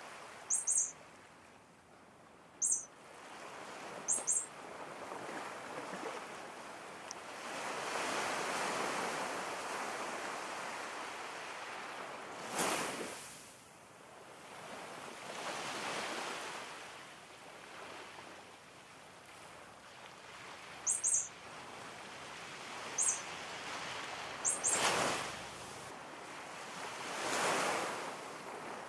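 Ocean surf washing in and out in slow swells, with a few short, very high bird chirps: three near the start and three more about two-thirds of the way through.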